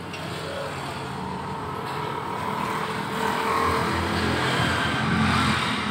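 A motor vehicle engine running, growing louder between about four and five seconds in.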